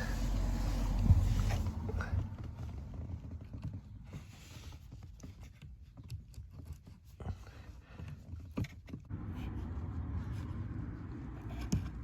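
Small clicks, ticks and scrapes of needle-nose pliers working a mini blade fuse into a car's interior fuse box, after a low rumbling rustle of handling in the first two seconds.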